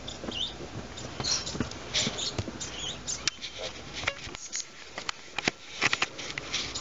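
Scratchy rustling and uneven sharp clicks of a stick and a tiger cub's paws scraping in dry grass and dirt as the cub plays with the stick.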